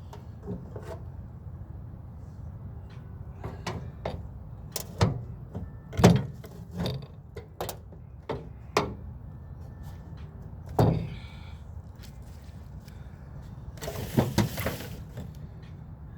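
Sheet-metal parts of a microwave's casing being pried and worked loose with a knife and screwdriver: irregular knocks, clanks and scrapes. The loudest knocks come about six and eleven seconds in, with a burst of clattering about fourteen seconds in.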